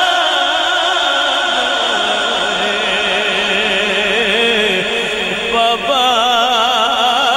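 A man singing a naat into a microphone, drawing out long ornamented notes with a heavy vibrato. The melody drops lower about two seconds in, and a new high, wavering phrase begins about five and a half seconds in.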